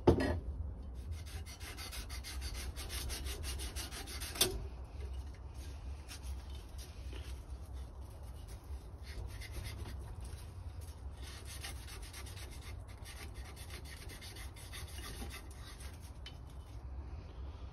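400-grade wet-or-dry abrasive paper rubbed quickly back and forth along the chrome spokes of an old BMX wheel, scouring off oxidation. One sharp click about four and a half seconds in.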